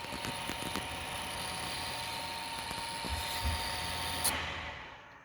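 Overloaded cheap PC power supply at about 345 watts: fans whirring with a high whine and buzz. About four seconds in, the whine cuts off and the sound dies away as the power supply gives out and the computer shuts down.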